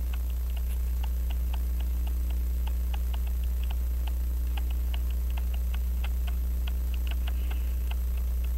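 Clockwork ticking, about three ticks a second and not quite evenly spaced, over a steady low hum.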